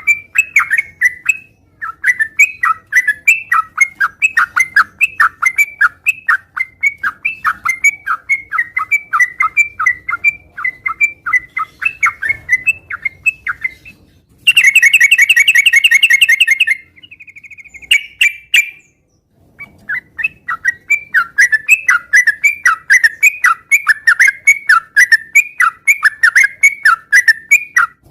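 Yellow-vented bulbul (trucukan) singing hard: long runs of short, sharp chattering notes, several a second, broken about halfway by a loud, dense trill lasting about two seconds and a brief pause, then the chattering runs resume.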